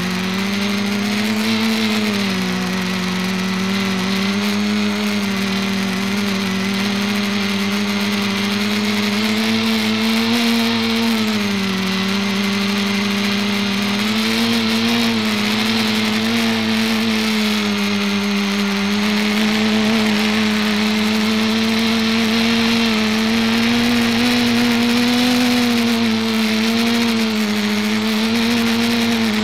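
Electric motors and propellers of an ETFD2 flying-disc multicopter in flight, heard from the craft itself: a steady hum whose pitch drifts up and down as the throttle changes, over a hiss of moving air.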